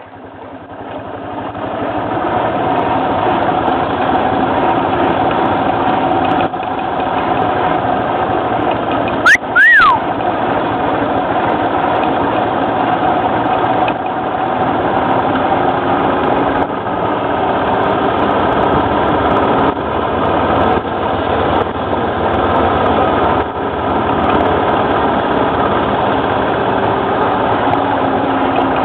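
ATV engine running steadily in gear without throttle while a dog team pulls the machine along a dirt trail, the hum and rolling noise building over the first couple of seconds as it gets moving. A brief high squeal that rises and falls about nine seconds in.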